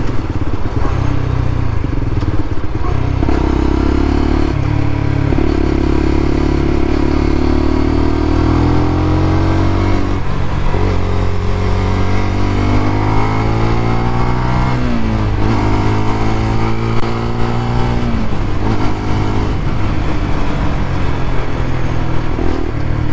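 125cc motorcycle engine heard from the rider's seat, pulling with rising pitch and dropping sharply at gear changes about ten and fifteen seconds in, then holding fairly steady at cruising speed. A rush of wind noise runs under it.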